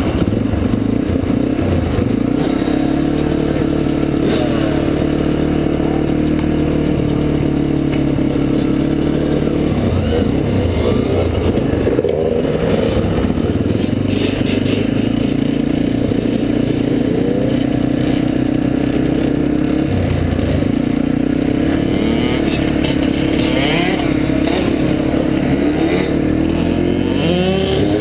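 Yamaha dirt bike engine running as the bike rides at low speed, with engine pitch holding steady for several seconds and then changing twice, about a third and two-thirds of the way in. Other dirt bike engines rise and fall in pitch in the background.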